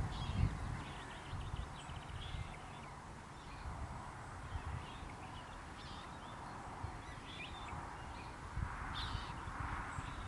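Outdoor ambience of wind rumbling on the microphone in gusts, with scattered short chirps of small songbirds.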